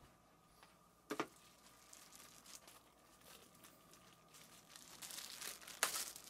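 Packaging crinkling and rustling as it is handled and pulled open during an unboxing, with a sharp click about a second in and denser, louder crackling near the end.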